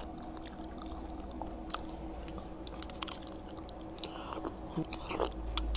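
A person chewing a spoonful of chocolate corn-puff cereal in milk, close to the microphone, with scattered small clicks and crunches.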